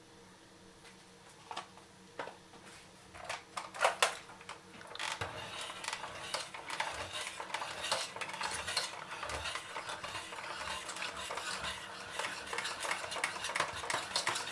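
Electric hand mixer's beaters whisking cream into chocolate pudding in a stainless steel pot. From about five seconds in there is continuous rattling and scraping as the beaters hit the pot, after a few separate knocks in the first seconds.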